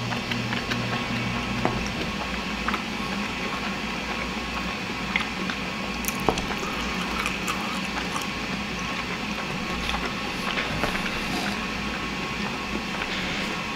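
Close-up chewing of a mouthful of baked calzone-style pizza: wet, squishing mouth sounds with many small irregular clicks and smacks.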